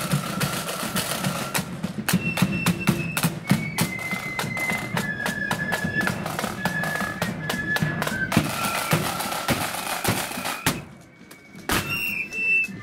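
Marching flute band playing a tune: flutes carry the melody over rapid side-drum rolls and bass drum beats. The tune breaks off near the end, leaving a few scattered drum strikes.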